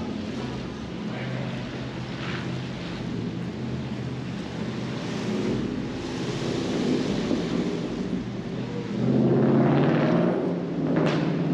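Rainy city street: a steady wash of rain and wet-road traffic noise over a low engine hum, with a vehicle driving past on the wet road about nine seconds in and a short sharp sound just before the end.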